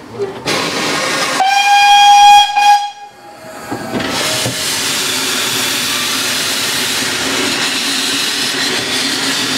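Narrow-gauge steam locomotive's whistle, one blast of about a second and a half after a short hiss, the loudest sound here. About four seconds in the train gets under way, and a steady running noise of the moving carriages follows.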